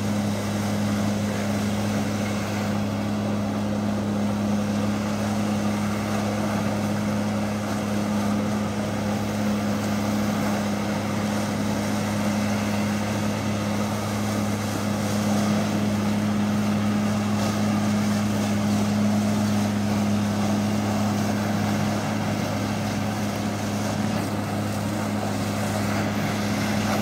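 Jet ski engine running steadily, pumping water up the hose to a jetboard, with a constant low hum and the rush of the water jets spraying down onto the lake.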